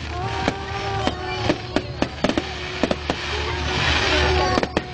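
Fireworks going off: a rapid, irregular run of sharp bangs and cracks, with a rushing hiss swelling about three to four seconds in.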